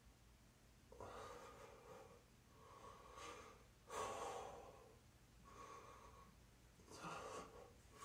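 A man breathing hard and audibly through his mouth from the strain of holding a handstand: about five breaths, roughly one every second and a half, the loudest about halfway through.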